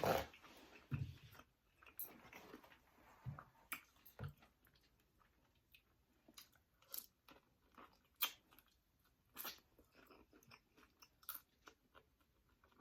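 Close-up eating sounds of a person chewing seafood: irregular wet mouth clicks and smacks with a few crunches.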